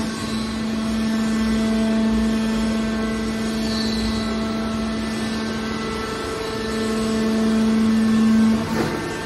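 Hydraulic scrap metal baler's power unit running: a steady motor-and-pump drone with a strong hum, swelling louder about two-thirds of the way through and easing off near the end.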